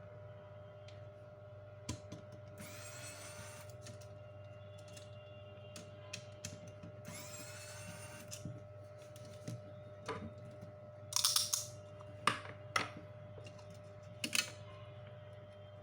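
Bench repair sounds: scattered clicks and knocks, loudest in a cluster about two-thirds of the way through, with two short whirs of a small motor rising in pitch, over a steady electrical hum.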